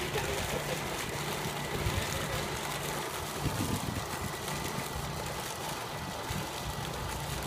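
Truck-mounted pump rig running steadily: a constant engine hum with a faint, high, steady whine over it.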